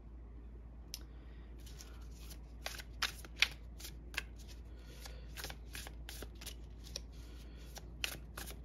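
Deck of tarot cards being shuffled by hand: a quick, irregular run of card flicks and snaps, with a few sharper clicks about three seconds in and again near the end.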